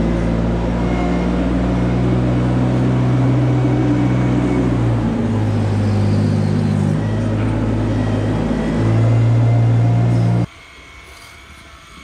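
Engine of a compact ride-on farm machine running steadily as it is driven along a slatted barn floor, its pitch shifting a few times. It stops abruptly about ten and a half seconds in.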